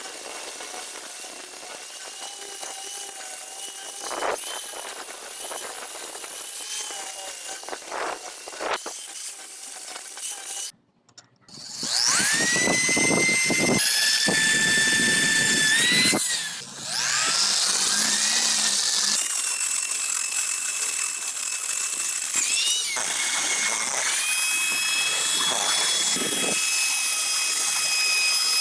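Handheld electric power tool whining loudly at high speed. It spins up with a rising pitch about twelve seconds in, then runs with brief dips and re-starts. Before that there is quieter workshop noise with a few sharp knocks.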